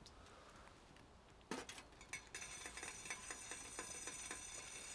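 Camp cutlery and food handled by hand, with a sharp knock about a second and a half in. A run of light ticks follows over a steady high hiss that starts about two seconds in.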